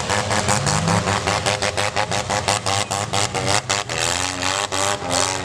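Several demolition derby car engines running and revving at once, their pitches rising and falling against each other, with a rapid irregular crackle throughout.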